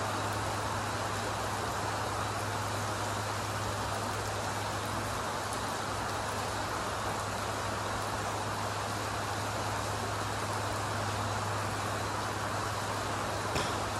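Steady rain falling, an even hiss with a constant low hum beneath it. A single faint click near the end.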